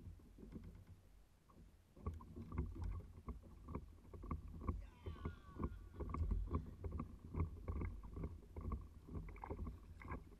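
Small waves slapping against the hull of a fishing kayak in quick, irregular knocks over a low rumble.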